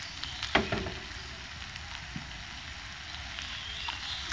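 Chopped liver sizzling in a nonstick frying pan while its released water cooks off, as a silicone spatula presses and stirs it. There is one sharper tap of the spatula on the pan about half a second in.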